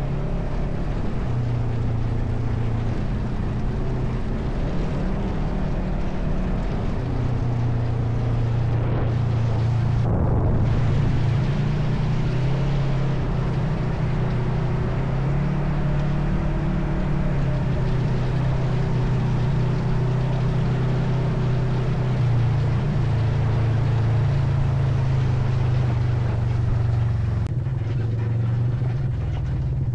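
ATV engine running steadily under way, its pitch shifting up and down now and then as the throttle and speed change.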